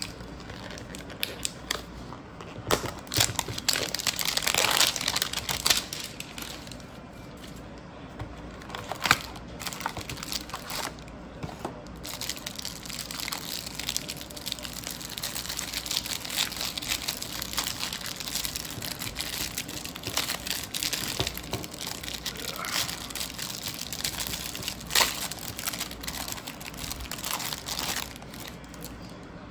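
Crinkling and crackling of plastic wrapping on a Topps trading-card hanger box as it is torn open and handled, with sharp clicks among it. It is loudest about three to six seconds in, then crinkles on steadily until near the end.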